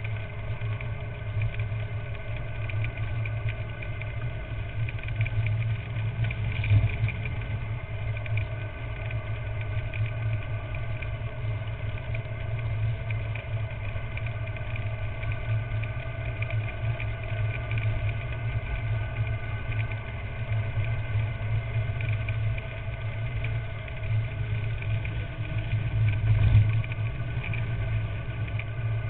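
Steady rumble of a carrilana, an engineless gravity-powered downhill cart, rolling fast down an asphalt road: tyre roar and wind on the onboard microphone. Two louder knocks stand out, one about a quarter of the way through and one near the end.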